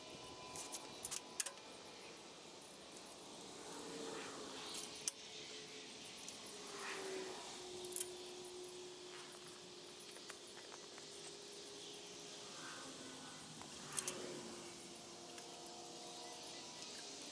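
Faint, sped-up clinks and sharp clicks of hand tools and metal parts while bolting an engine into a tractor frame, the sounds coming in scattered bunches.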